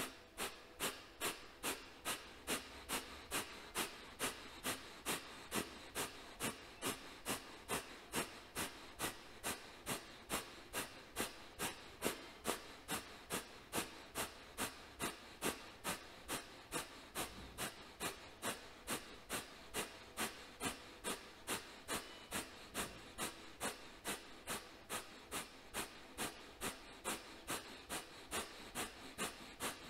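Kapalabhati yoga breathing: short, forceful exhalations blown out through the nose at a steady pace of about two a second, with a quieter gap after each.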